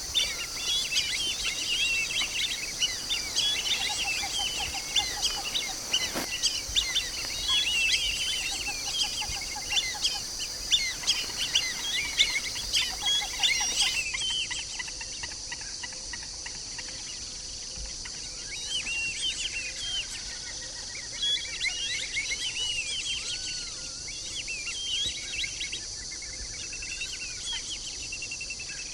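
White-faced whistling ducks calling: many short, high whistles overlapping, thinning out about halfway through, over a steady high-pitched background drone.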